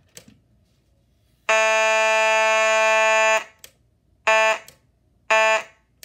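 Simplex 2903 fire alarm horn sounding a buzzy tone: one long blast of about two seconds, then two short blasts about a second apart, switched on and off by hand from a power strip.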